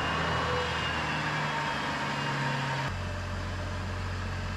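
Chevrolet Trailblazer's straight-six engine idling just after its first start following a rebuilt transmission install. About three seconds in the idle settles to a slightly lower, steady pitch, and a faint whine over it stops.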